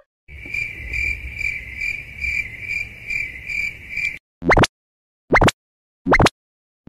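Crickets chirping in an even pulsing trill that stops abruptly about four seconds in, followed by four quick rising whistle-like sweeps, about one a second.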